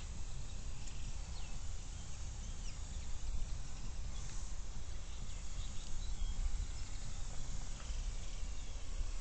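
Outdoor ambience: a low, uneven rumble of wind on the microphone, with a few faint bird chirps.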